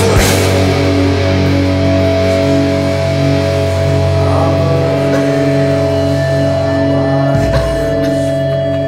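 Heavy hardcore music: after a cymbal crash at the start, a distorted electric guitar chord is held and rings on with almost no drumming, and a deep low note swells in about seven and a half seconds in.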